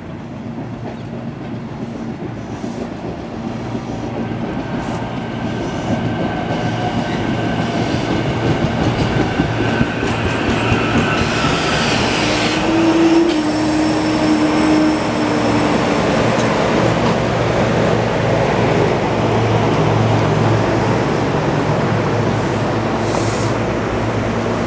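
SEPTA Silverliner V electric multiple-unit commuter train pulling into the station and running along the platform as it slows, growing steadily louder as it nears. A brief squealing tone comes about halfway through as the cars pass.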